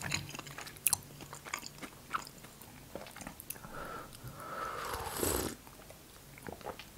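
Quiet chewing and small mouth clicks, then sips from a mug of hot tea starting about four seconds in, ending in a short, louder slurp.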